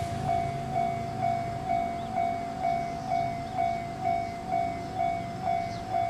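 Electronic railroad crossing warning bell ringing, an even two-tone-like ding repeating about twice a second.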